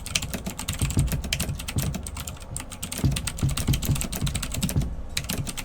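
Typing rapidly on a Havit HV-KB366L mechanical keyboard with Outemu Blue switches: a dense run of key clicks, with a brief pause about five seconds in.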